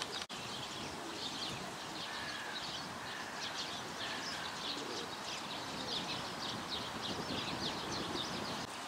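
Many small songbirds chirping and twittering in quick short calls almost without a break, over a steady background noise.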